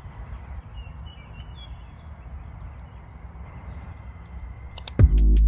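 Outdoor ambience: a steady low rumble with a few faint bird chirps about a second in. Near the end, electronic music with a heavy bass line and a drum beat cuts in suddenly.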